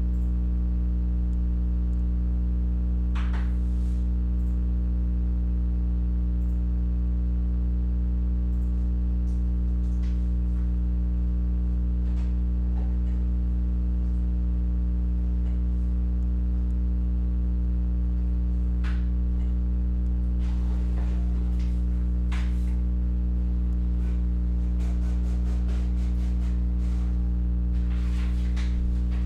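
Steady electrical mains hum, a low buzz with its overtones, under faint scattered rustles and clicks of a sealed box of trading cards and its packs being opened, busier near the end.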